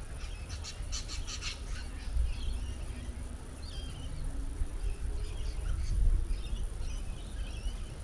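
Wild birds chirping and calling: a quick run of repeated sharp notes about a second in, then scattered chirps and warbles, over a low rumble of wind on the microphone.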